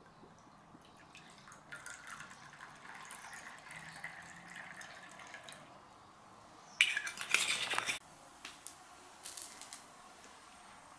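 Clear liquor poured from a glass bottle into a small porcelain cup: a trickling fill with a slowly rising pitch for several seconds, then a louder, brief burst of splashing about seven seconds in, followed by a few light clicks.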